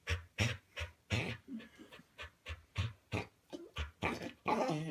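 A dog panting in quick, even breaths, about three a second, with a louder stretch near the end.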